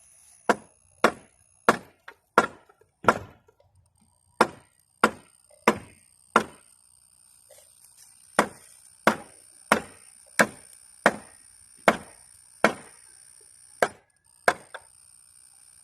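Repeated hard blows striking a wooden board of a bench swing to knock it loose, about nineteen sharp knocks in three runs with short pauses between them.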